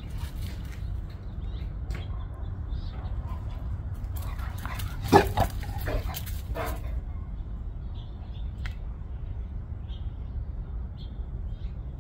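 Dog barking in a short burst of a few barks about five seconds in, the first the loudest.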